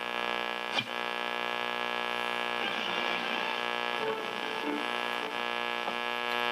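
1966–67 Buick Sonomatic AM car radio playing through its speaker: a steady hum, with faint broadcast sound under it and a single click just under a second in.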